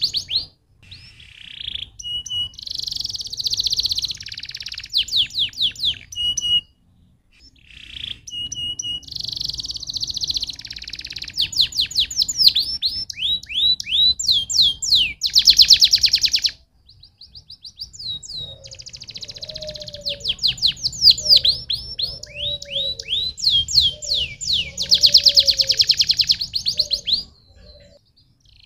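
Domestic canary singing a long song of rapid rolling trills and quick runs of falling whistled notes, pausing briefly twice.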